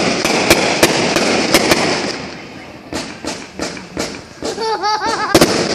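Consumer fireworks going off. A dense crackling runs for about the first two seconds, broken by sharp bangs, and then single bangs from aerial bursts follow every half second or so.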